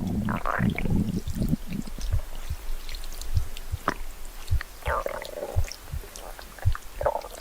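Stomach growling: watery gurgles in the first second or so, again around the middle and near the end, over a run of low soft thumps about twice a second.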